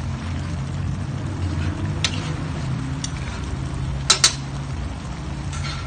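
Metal ladle stirring a coconut-milk fish stew in a metal wok, clinking lightly against the pan about two and three seconds in, then two sharp taps in quick succession just after four seconds, over a steady low hum.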